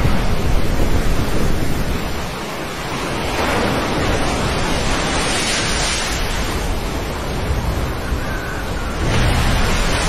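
Wind buffeting the microphone over heavy seas: storm waves breaking against a ship's side and spray sweeping across the deck, in hissing surges a few seconds apart.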